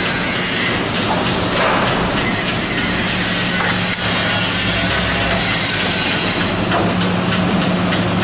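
Industrial wood-processing machinery running steadily, a constant hum under a loud hiss, with a brief break about four seconds in.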